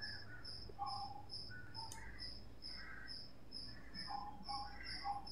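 Faint background chirping: short, scattered chirps over a thin high-pitched pulse that repeats about two to three times a second.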